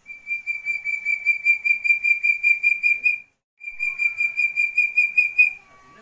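Young Javan partridge (puyuh gonggong) calling: a rapid series of high whistled notes, about five a second, rising slightly in pitch. The notes come in two runs with a short break a little after three seconds in.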